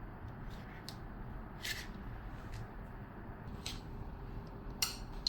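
12V DC ball-bearing cooling fan running with a quiet, steady whir and a faint steady tone, now turning in reverse after its FR wire is grounded. A few brief soft hisses occur about two, three and a half and five seconds in.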